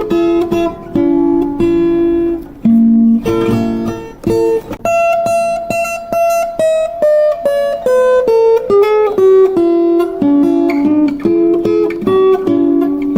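Instrumental music: acoustic guitar plucking a melody, with a run of notes stepping downward in the middle.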